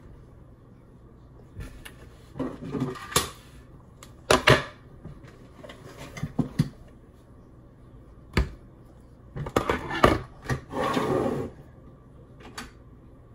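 Irregular clicks, knocks and short rustles of hair and makeup products being picked up, handled and put down, among them a plastic tube of hair styling product. The loudest knocks come about four and a half seconds in and again around ten seconds.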